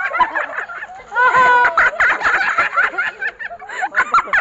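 A man laughing, mixed with excited voices, including one held high-pitched note about a second and a half in.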